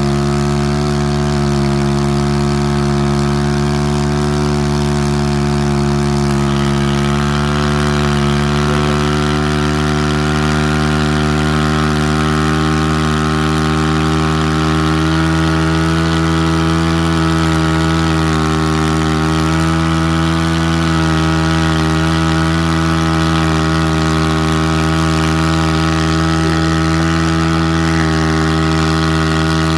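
Three-wheeler ATV engine running steadily at a nearly constant speed, its pitch stepping up slightly about seven seconds in.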